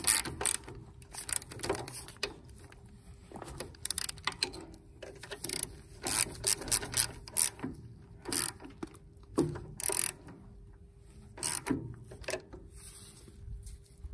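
Ratchet wrench clicking in short runs of strokes with pauses between, as a bolt is wound in.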